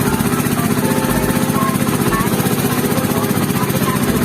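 Small motorboat's engine running steadily under way, a fast, even chugging.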